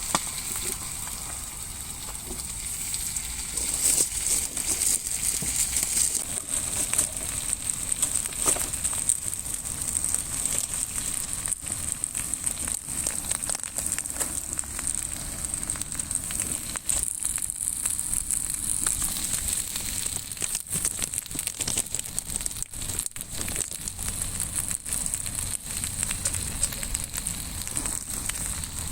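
Wood campfire crackling, with irregular sharp pops and snaps over a steady high hiss.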